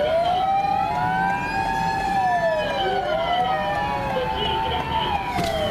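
Ambulance siren wailing in a slow fall and rise, about one cycle every three seconds, with steadier siren tones overlapping it.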